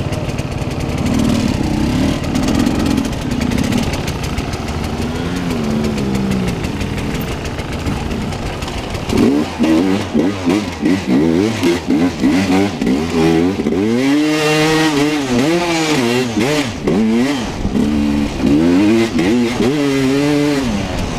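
Enduro dirt bike engine running at low revs with a few short throttle blips. From about nine seconds in it revs hard as the bike climbs a steep trail, its pitch rising and falling over and over with the throttle.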